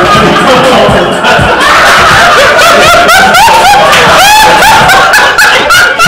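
A person laughing loudly and hard, in quick repeated high-pitched whoops that rise and fall, several a second.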